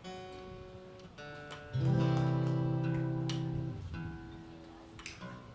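Baritone guitar playing the opening of a slow song: single plucked notes ring out, then a louder low chord is struck about two seconds in and left to ring and fade.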